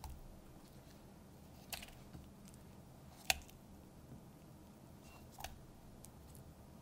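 Charred tomatillos set one by one into a stone molcajete, each landing with a short knock against the stone; four knocks in all, the third the loudest.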